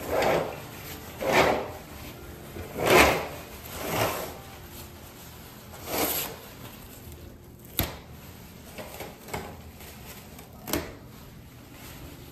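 Toilet paper pulled off a dispenser roll in about five long tugs over the first six seconds, then a few sharp clicks while the paper is bunched up.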